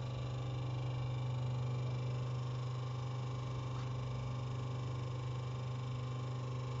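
Powered-on hydraulic crimping machine giving a steady, even hum, with faint steady higher tones above it.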